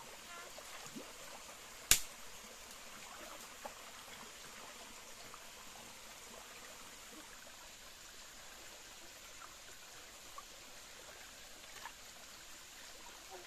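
Shallow stream trickling, with a few small clicks and knocks as a scoop net and pole are worked through the water. One sharp knock about two seconds in is the loudest sound.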